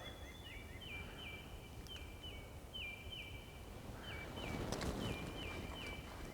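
A bird calling in the background: repeated short high chirps, each a falling note that levels off, often coming in pairs, over faint outdoor background noise. A brief soft rustle comes about four and a half seconds in.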